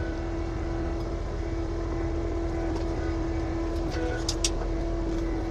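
Bulldozer engine running steadily at work, a continuous low rumble with a steady hum. A couple of faint short clicks come about four seconds in.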